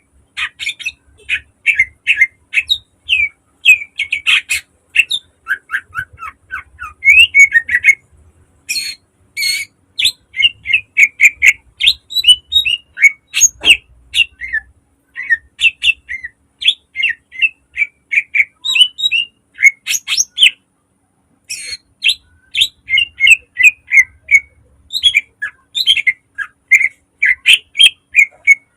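Cucak ijo, a green leafbird, singing loud, fast runs of short, sharp chattering notes broken by brief pauses, with a couple of sharp clicks in between.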